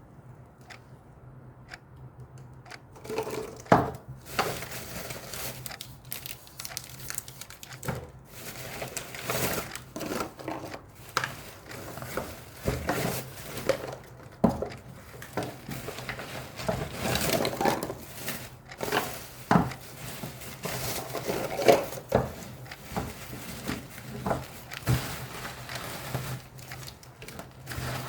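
Packaging being handled in an unboxing: crinkling and rustling of wrappers with scattered sharp knocks and taps, under a faint steady hum.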